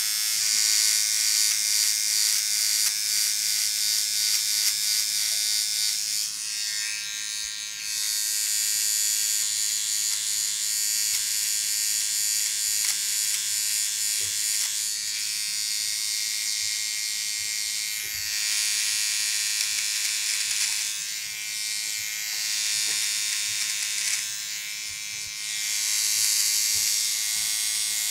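Philips OneBlade electric trimmer, fitted with its 5 mm comb, buzzing steadily as it trims a beard. A high hiss swells and drops back several times as the blade is drawn through the hair.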